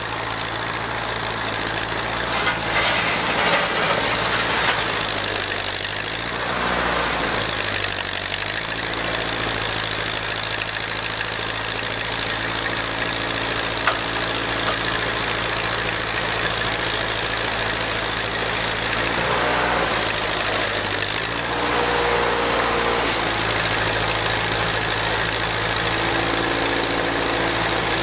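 Ford 2N tractor's four-cylinder flathead engine running while the loader pushes and lifts snow, its pitch dipping and recovering twice as it takes up load.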